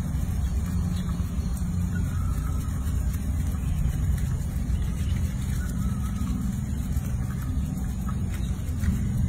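A steady low rumble with no distinct events, of the kind a running vehicle engine makes.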